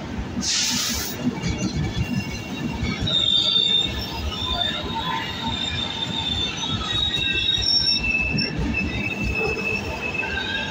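ETR 485 Frecciargento electric train arriving along the platform, with a low rumble of its wheels and bogies and thin, high wheel squeal that comes in from about three seconds on. There is a short hiss about half a second in.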